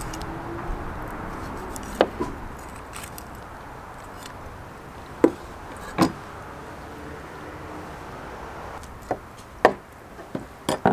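Knife and salmon being handled on a plastic fish-cleaning table during gutting: scattered sharp knocks and taps, several close together near the end, over steady background noise.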